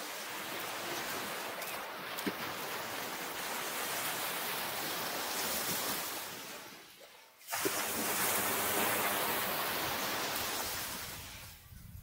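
Waves breaking and washing up a sandy beach: a long wash of surf that dies away about seven seconds in, then the next wave breaks suddenly and washes in, fading near the end.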